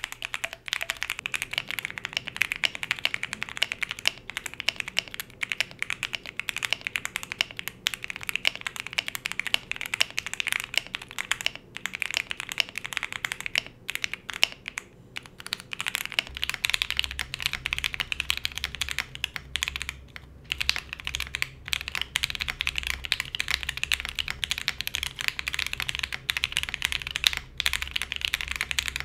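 Continuous typing on a KBDFans Tofu65 2.0 SE mechanical keyboard with Gateron Oil King linear switches and Cherry-profile PBT keycaps: a dense, unbroken run of keystrokes. About halfway through the build changes from a polycarbonate plate with all foams to an FR4 plate with switch foam, and a low steady hum comes in at the same time.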